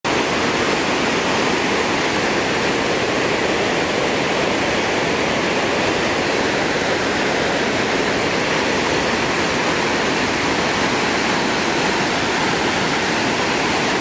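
Water overflowing a dam's spillway and tumbling down a rough, stepped bed as a waterfall: a steady, even rush. The water only runs here when the reservoir is full and the excess spills over.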